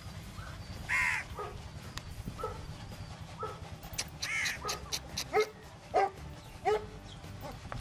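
Several short animal calls over a steady low rumble: two louder, high cawing calls about a second and four seconds in, then three shorter, lower calls.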